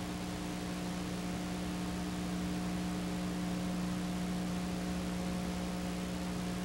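A steady low electrical hum with an even hiss over it, unchanging, with no other sound: the background noise of a silent film transfer.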